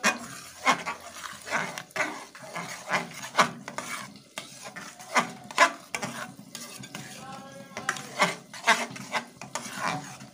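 Slotted metal spatula stirring and scraping a thick, bubbling mixture of reduced milk and chhena for kalakand around a metal pan on low heat, in repeated strokes about once or twice a second.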